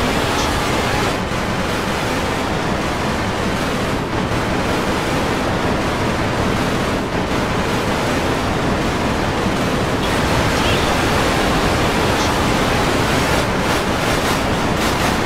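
Hundreds of video soundtracks playing at once, blended into a steady, loud wash of noise in which no single sound stands out.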